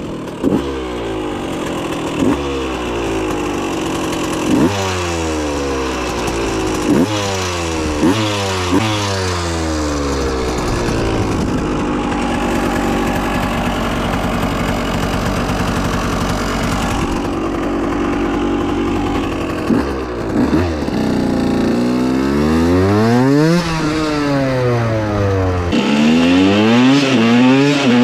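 2015 KTM 125 EXC supermoto's two-stroke single-cylinder engine running hard, revs climbing and dropping sharply again and again as through gear changes, holding steady for several seconds midway, then rising and falling again near the end.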